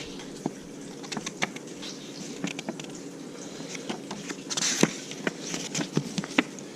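Light handling noise: scattered small clicks and taps, with a brief rustle a little past halfway, typical of picking up and leafing through a paper instruction sheet.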